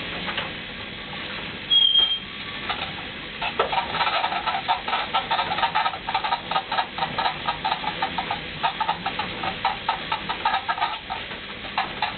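Elliptical trainer creaking and clattering as a toddler works its handles and pedals. There is a short high squeak about two seconds in, and from about three seconds in a dense run of repeated creaks and knocks.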